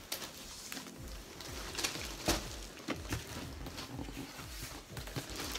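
Faint knocks and taps of a large cardboard box being handled and lifted, a few scattered thuds about half a second to a second apart.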